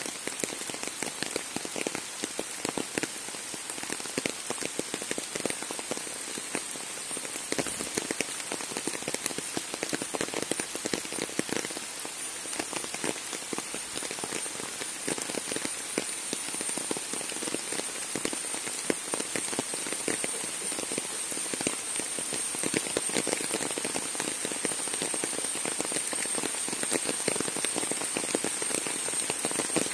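Steady rain falling on trees and undergrowth, with many separate drops striking close by, over a steady high thin whine. The rain grows a little louder in the last third.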